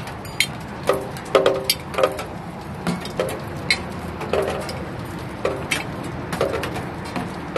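Raindrops falling onto hard surfaces in an irregular rhythm, each a sharp tap or plink, some with a brief pitched ring, over a steady hiss of rain.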